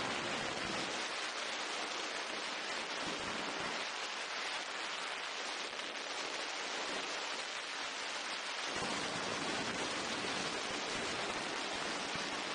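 Steady rushing hiss of airflow over an outside-mounted action camera on an open ultralight in flight. A low rumble beneath it drops away about a second in and comes back about two-thirds of the way through.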